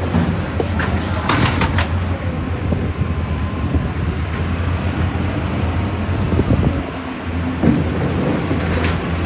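Heavy machinery running steadily with a low hum, with a quick cluster of knocks and clanks about a second in and a few single knocks near the end, like rock and steel striking.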